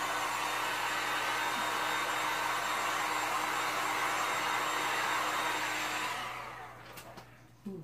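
Electric heat gun running steadily, its fan blowing hot air over freshly poured epoxy resin to warm it. About six seconds in it is switched off and winds down, its whine falling away.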